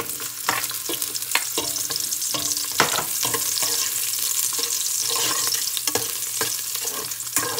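Sliced red onion and garlic sizzling steadily in hot oil in a stainless steel pot, with a metal spoon and spatula clinking and scraping against the pot now and then as the onion goes in and is stirred.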